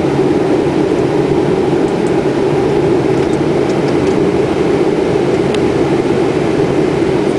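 Steady airliner cockpit noise on descent: the even rush of airflow over the nose mixed with engine and ventilation hum. A few faint clicks from the cockpit controls sound in the middle.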